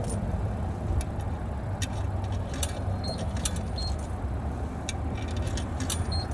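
Steady low motor hum, with scattered light clicks and rattles over it and a few brief high pips.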